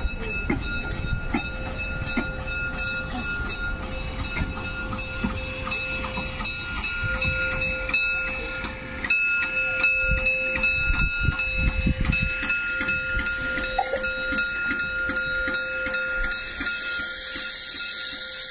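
Narrow-gauge steam locomotive moving slowly on the track: a low rumble under rapid, regular clicking and a few steady tones. A hiss comes in near the end as the engine stands against its coach for coupling.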